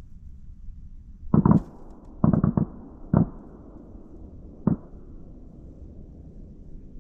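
Distant shotgun shots from other duck hunters across the lake: two together, then a quick string of three, then two single shots, each followed by a rolling echo.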